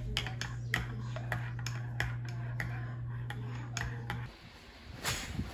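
Metal spoon stirring a drink in a ceramic mug, clinking against the sides about three times a second. A steady low hum under it stops a little past four seconds in, and a brief louder noise follows near the end.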